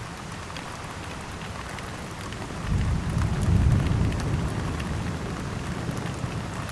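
Heavy rain falling steadily, with sharp hits of individual drops close by. About three seconds in, a low thunder rumble swells up, then fades away over a few seconds.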